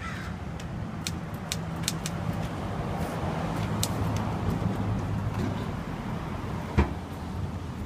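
Manual typewriter keys striking one at a time, slow and uneven, over a steady rumble of street traffic that swells in the middle. A louder knock comes near the end.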